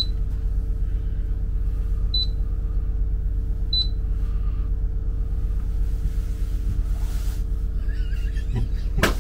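Boat's engine running steadily, a low drone heard inside the wheelhouse, with three short high beeps in the first four seconds and a sharp click near the end.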